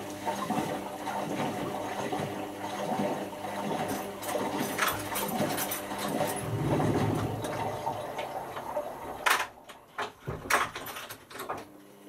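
Indesit IWC6165 washing machine taking in water at the start of its wash cycle, a steady rush of water. About nine seconds in the rush drops away between a few sharp clicks.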